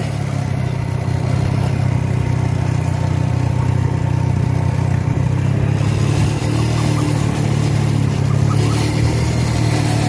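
Motorcycle engine running steadily in first gear on a steep downhill, holding the bike back with a low, even hum.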